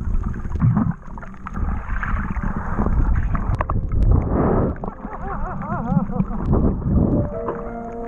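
Water sloshing and gurgling around an action camera held just under the sea surface, with a low rumble and a few sharp clicks, heard through the waterproof housing. A short wavering pitched sound comes about two-thirds in, and background music with held notes enters near the end.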